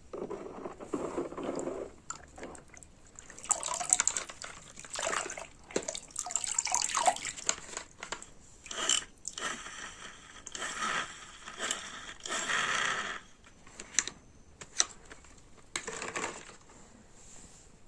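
Water splashing and trickling in irregular bursts as toy vehicles are washed in it.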